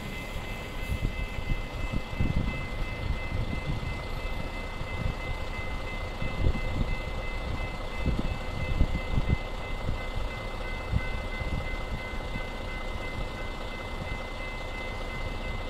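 Electronic railway crossing bell ringing continuously with a steady high electronic chime, with irregular low rumbling underneath.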